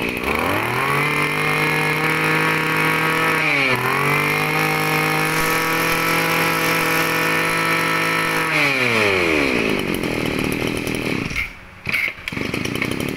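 Echo 23cc two-stroke brush cutter engine revved up to full throttle and held there, with a brief dip about three and a half seconds in. It drops back to a lower, rougher idle after about nine seconds.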